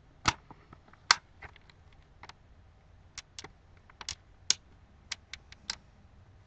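Plastic clicks and taps from fingers working the tablet's plastic back cover and case, a string of irregular sharp clicks, the two loudest within the first second or so.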